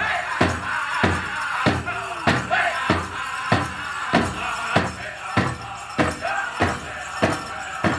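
Powwow drum group playing a chicken dance song: a big drum struck in a steady beat, about one and a half strokes a second, under high men's singing.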